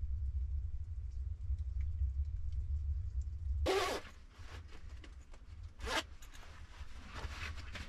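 A jacket zipper pulled up in a quick zip about halfway through, then a second shorter zip about two seconds later. A low steady hum runs under the first half and stops just before the first zip.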